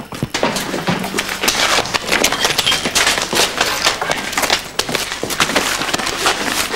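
Hurried running footsteps and a scuffle: a dense run of knocks and clatters as a man is chased down and grappled.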